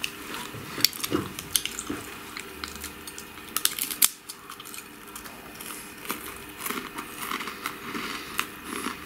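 A person biting and chewing food close to the microphone: scattered small crackling clicks and crunches.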